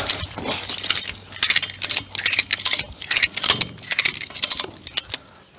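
Ratchet strap being worked at a tractor's three-point hitch: irregular runs of quick metallic clicks and clinks from the ratchet and its hooks.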